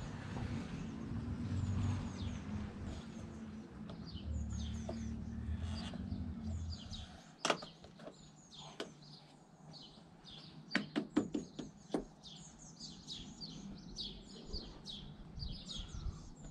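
Small birds chirping over and over, short high falling notes, while a low rumble underneath stops about seven seconds in. A few sharp clicks and knocks stand out, one about halfway and a quick cluster a few seconds later, from plastic trim parts being pushed and snapped into place on the car.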